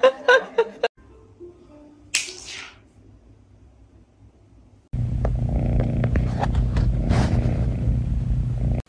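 Cat purring loudly and steadily, right up against the microphone, from about five seconds in until it cuts off near the end. Before it, there is a brief burst of laughter and voices at the very start.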